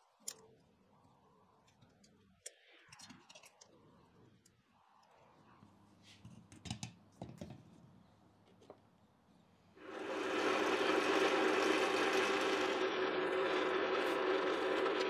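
Small knocks and clinks of steel flat-bar pieces being handled and clamped. About ten seconds in, a drill press motor is switched on and runs with a steady hum and whir.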